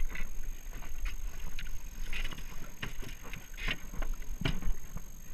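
Irregular splashing and water slapping against a jet ski's hull as a hooked red grouper thrashes at the surface alongside, over a low wind rumble on the microphone. A heavier thump comes about four and a half seconds in.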